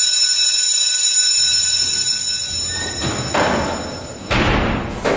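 Alarm-like ringing made of several steady high tones, fading away over about three seconds. Two short rushing noise bursts follow, about three and four seconds in.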